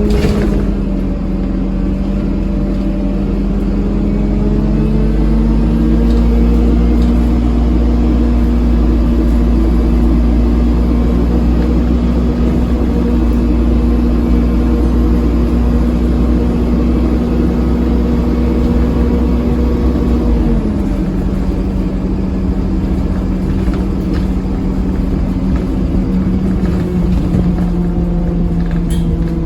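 Dennis Dart SLF bus's diesel engine and Allison four-speed automatic driveline running under way with a loud, hoover-like drone over a deep rumble. The drone steps up slightly about five seconds in, drops in pitch with the rumble easing about twenty seconds in, and climbs again near the end.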